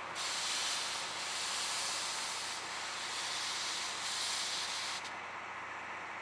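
Steam locomotive C57 180 venting steam: a steady hiss that starts suddenly and cuts off sharply about five seconds in.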